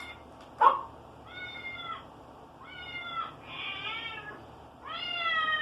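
A cat meowing over and over: about five drawn-out meows, each rising and then falling in pitch. There is a sharp click about half a second in.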